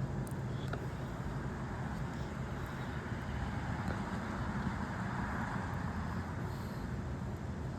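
Distant road traffic: a steady outdoor hum of passing cars, with one car's tyre noise swelling and fading about midway.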